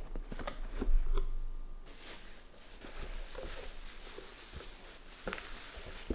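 Packaging and parts being handled: scattered clicks and rustling, a low thump about a second in, then a steady rustle from about two seconds until near the end.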